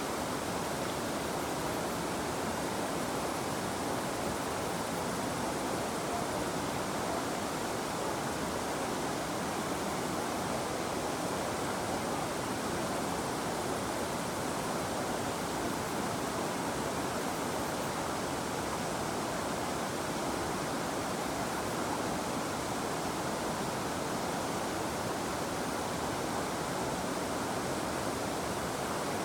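River water flowing, a steady, even rushing with no breaks.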